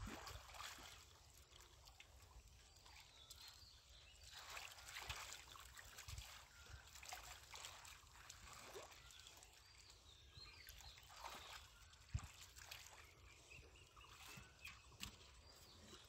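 Faint, irregular sloshing and splashing of hands groping through shallow muddy water, with a few small knocks.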